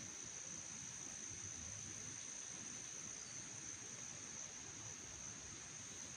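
Crickets trilling in a steady, high-pitched chorus, over a faint low rumble.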